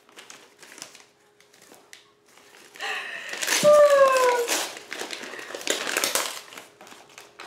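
Package wrapping crinkling as it is unwrapped by hand. A few soft clicks come first, then steady crinkling from about three seconds in. A brief falling vocal sound comes from the person unwrapping it.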